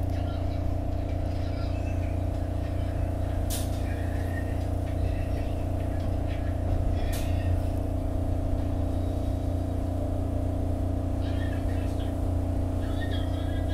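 SEPTA Market-Frankford Line rapid-transit car running along the track, heard from inside the car: a steady low rumble with steady motor hum tones. Two sharp clicks come a few seconds apart.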